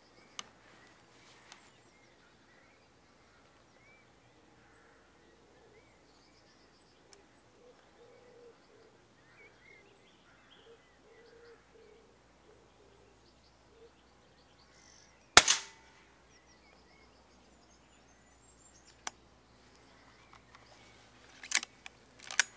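A single sharp shot from a silenced Daystate Red Wolf pre-charged pneumatic air rifle about two-thirds of the way through, the loudest sound by far, over faint birdsong. A few clicks follow near the end.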